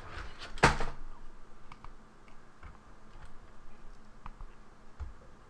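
Handling noise from a camera being moved and repositioned: a loud rustling bump about half a second in, then a few faint scattered clicks and knocks.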